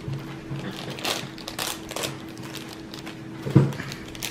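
Small plastic toy packet being crinkled and torn open by hand, with irregular crackling and a single louder knock about three and a half seconds in.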